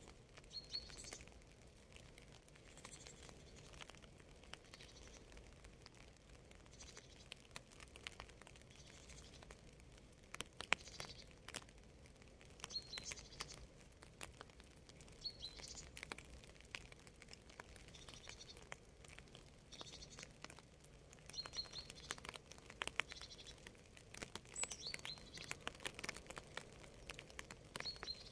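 Faint rain, with scattered drops tapping and pattering. A bird gives short high chirps every few seconds.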